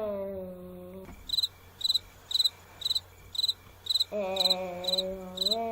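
A high chirp repeating steadily about twice a second, starting about a second in. It is heard over a girl's long drawn-out hesitation sound while she thinks, once at the start and again near the end.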